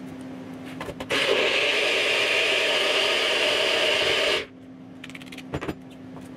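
NutriBullet personal blender running for about three seconds, crushing ice cubes and frozen fruit in almond milk, then cutting off suddenly. A few clicks and knocks come before and after it as the cup is fitted to the motor base and taken off.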